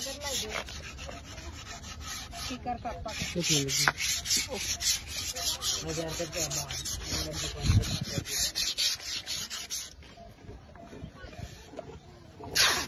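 Sandpaper rubbing back and forth over the face of a wooden cricket bat in quick, regular strokes, which stop about ten seconds in. Near the end comes a short, loud rip of adhesive tape pulled off its roll.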